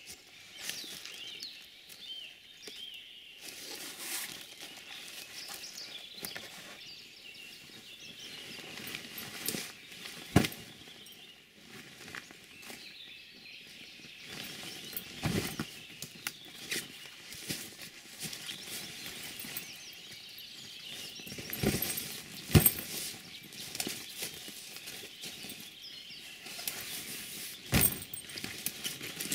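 Footsteps crunching through dry leaf litter and brush, with scattered sharp snaps and knocks of twigs and gear. The loudest come about ten seconds in and again a little past twenty seconds. Faint high chirps of small birds sound in the background.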